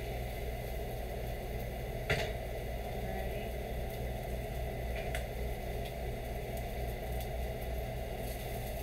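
Trumpet mushroom steaks sizzling in oil in a cast-iron skillet, over a steady low hum. A sharp click comes about two seconds in and a fainter one near five seconds.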